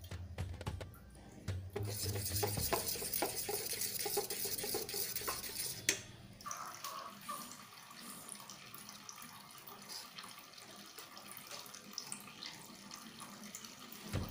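Metal spoon stirring thin, wet flour batter in a bowl, a wet sloshing with small clicks of the spoon against the bowl, loudest in the first few seconds and quieter after about six seconds in.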